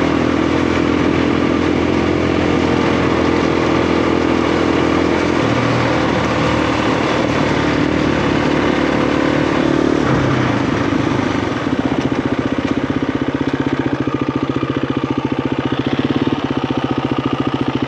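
KTM 350 EXC single-cylinder four-stroke dirt-bike engine running steadily under way. About ten seconds in it eases off, and it settles into a regular pulsing idle.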